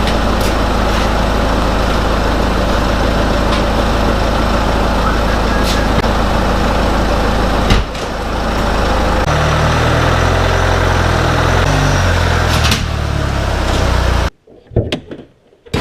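Car engine running steadily, with a single knock about eight seconds in; after that the engine note shifts up and down until it cuts off suddenly near the end.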